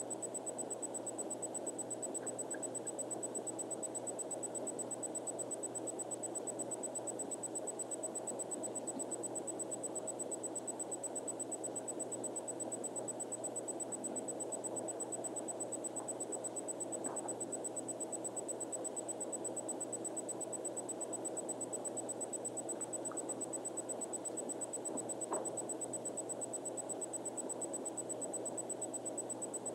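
Steady background hiss with a faint high whine and a low hum, the noise floor of the recording, broken only by a few faint ticks, the clearest about 25 seconds in.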